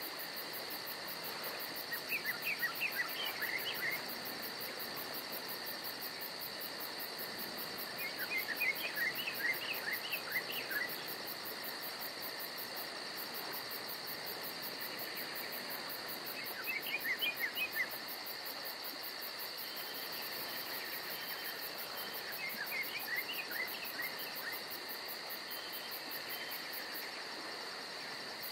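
Steady shrill insect chorus, crickets among them, with a rapid even pulsing high up. Four times, about every six seconds, a short run of quick chirps rises above it.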